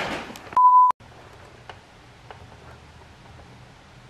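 A single short, steady, high beep about half a second in, a censor bleep laid over the soundtrack, ending in an abrupt cut. After it comes quiet room tone with a few faint clicks.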